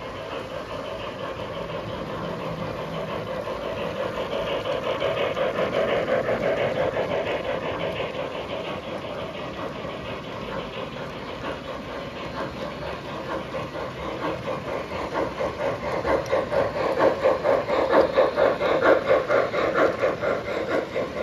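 O gauge model steam locomotive and its freight train running on three-rail track: the engine's sound system chuffs and hisses, and the cars' wheels roll and click over the rails. The clicking swells into a steady beat and is loudest near the end as the cars pass close.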